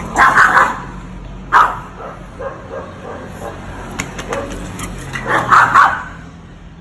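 Pug barking in short bursts: a quick run of barks at the start, a single sharp bark about a second and a half in, and another run of barks near the end, with fainter short yips in between.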